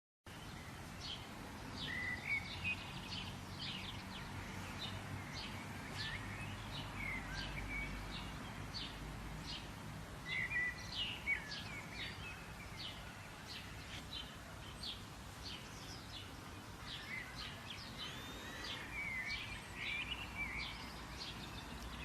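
Birds chirping and calling: many quick, sharp chirps with some rising and falling whistled notes, over a low steady rumble.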